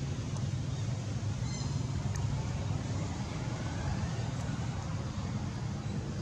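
Steady low motor rumble, with a few faint high chirps about one and a half to two seconds in.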